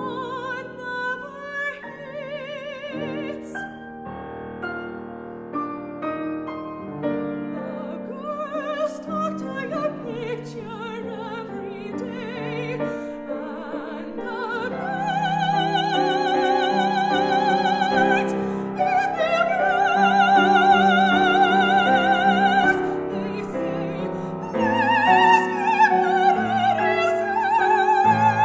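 A woman singing an opera aria in full classical voice with wide vibrato, accompanied by a grand piano. She grows louder about halfway through and holds long high notes.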